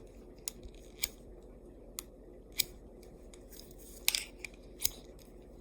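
Swiss Army knife blade drawn through a kitchen knife sharpener: about six short, sharp metal scrapes at uneven intervals.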